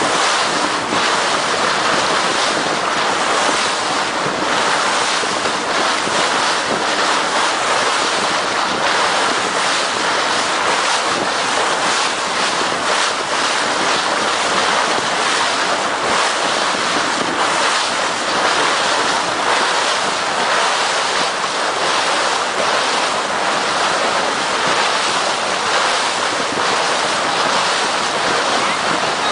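Boat under way on open sea: water rushing and splashing past the hull with wind buffeting the microphone, a steady loud noise.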